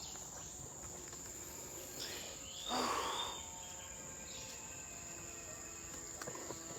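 Steady high-pitched drone of insects in tropical forest, with a brief louder rustling noise about three seconds in.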